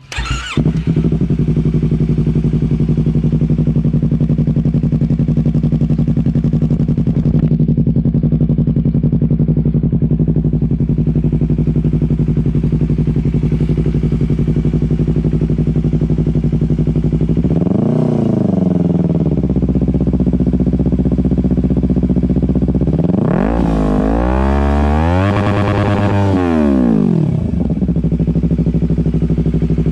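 Yamaha R3's parallel-twin engine idling through an aftermarket Akrapovic muffler, blipped once briefly about two-thirds of the way in, then revved higher and let fall back to idle near the end.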